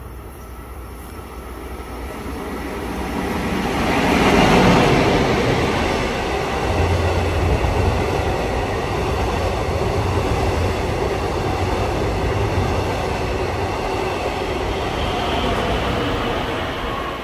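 Long Island Rail Road diesel train of bilevel coaches passing through the station close by, with steady wheel-on-rail noise. It builds as the train approaches, is loudest about four seconds in, holds steady while the cars roll past, and fades near the end.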